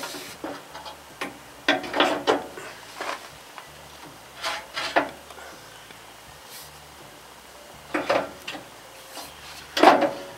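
A steel hydraulic cylinder being worked by hand into its mount on a loader arm, clanking and scraping against the metal bracket in a handful of irregular knocks a second or more apart.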